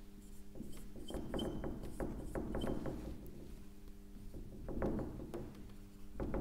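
Marker pen writing on a whiteboard: a run of short scratching strokes as digits and letters are drawn, with a few faint brief squeaks.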